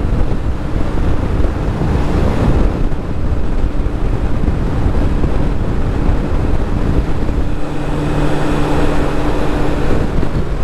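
Wind rushing over the microphone of a moving motorcycle, with the engine's steady hum underneath; the engine note comes up more clearly in the last few seconds.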